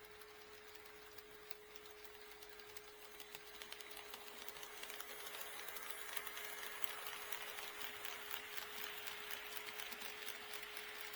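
HO scale model train running on sectional track, its wheels clicking rapidly over the rail joints along with the small motor's running noise, getting louder about four seconds in as it comes closer. A steady faint hum sounds underneath throughout.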